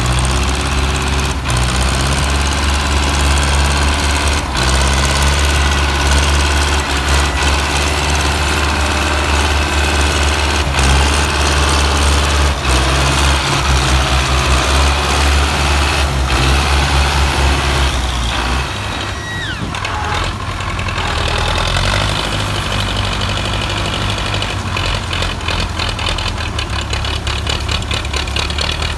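Belarus MTZ-50 tractor's four-cylinder diesel engine running steadily while it pulls a double-axle trailer loaded with sugarcane. The engine note drops about two-thirds of the way through, and a brief high squeal falling in pitch follows just after.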